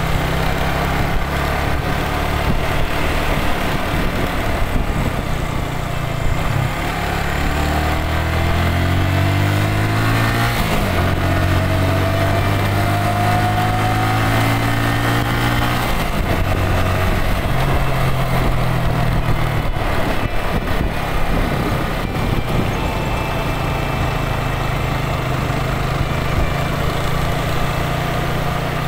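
Motorcycle engine running under way, with road and wind noise. Its note climbs for a few seconds, drops sharply about ten seconds in, then holds steady.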